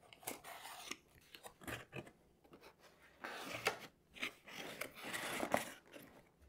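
A snap-off utility knife slitting the tape seal on a cardboard box in short scratchy strokes, then the cardboard lid being lifted open with a longer stretch of scraping and rustling.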